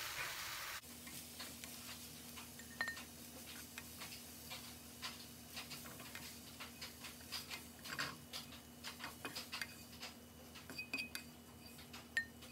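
Coconut filling sizzling as it is stirred in a nonstick skillet. The sizzle stops suddenly under a second in, and a slotted spatula then scrapes and taps the pan and a glass bowl in quick, irregular clicks as the filling is scraped out, over a faint steady hum.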